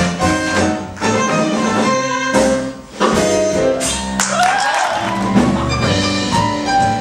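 Musical-theatre orchestra playing an up-tempo, jazzy show number. The music changes abruptly to a different passage about four seconds in.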